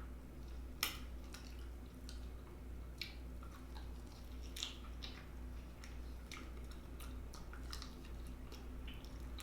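Close-miked eating sounds of a person picking fried chicken meat off the bone: wet chewing, smacks and small clicks at irregular moments, the sharpest about a second in. A low steady hum runs underneath.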